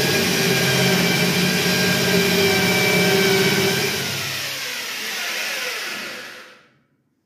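Corded electric drill running at full speed into the ceiling, then released about four seconds in and spinning down, its pitch falling until it stops.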